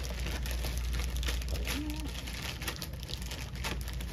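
Clear plastic wrapper of a Foley catheter kit crinkling as the kit is handled and lifted out of it, in a run of irregular crackles over a steady low hum.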